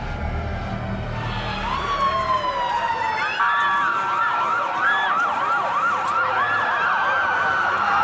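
Several emergency-vehicle sirens sounding together, building up from about a second in; from about three seconds in one of them switches to a fast yelp, rising and falling two or three times a second, over the slower wails of the others.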